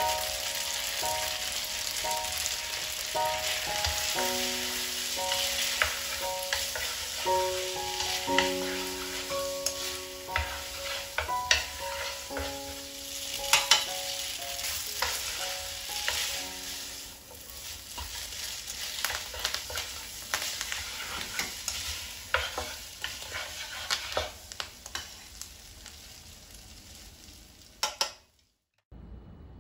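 Spaghetti aglio olio with pork sizzling in a frying pan, being tossed and stirred, with frequent clicks and scrapes of the utensil against the pan. Soft background music plays under it during the first half, and the sizzling cuts off abruptly near the end.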